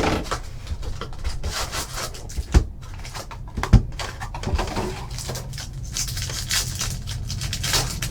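Trading card packs being handled and opened: foil wrappers crinkling and tearing and cards rustling, with two sharp knocks, one about two and a half seconds in and one near the four-second mark.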